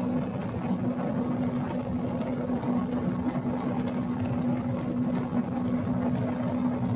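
Honda Tornado 300 motorcycle engine running at a steady speed, giving an even drone that holds one pitch without revving up or down.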